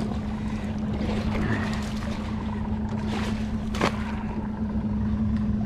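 A drift sock tossed over the side of a skiff and splashing into the sea, with short sharp splashes about three and four seconds in. Under it, a steady low hum and wind-and-water rush throughout.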